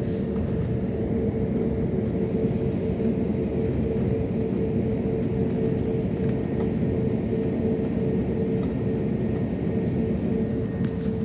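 Jet airliner cabin noise while taxiing: the engines and air system make a steady rumble with one constant humming tone over it, heard from inside the cabin.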